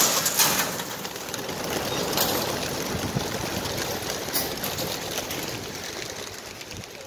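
A large flock of pigeons bursting out of their transport crates and taking off at once: a sudden dense rush of wingbeats that starts abruptly and slowly fades as the flock flies away.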